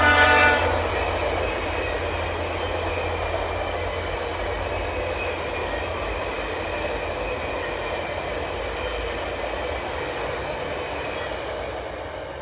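The tail of a locomotive air horn, a K3, cutting off about half a second in. Then the steady rolling rumble of a passenger train's stainless-steel coaches passing on the rails, slowly fading near the end as the last car goes by.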